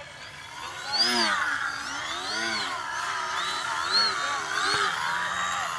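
Electric motor and propeller of a DW Foamies Juka 40 foam RC aerobatic plane, a whine that rises and falls in pitch several times as the throttle is worked.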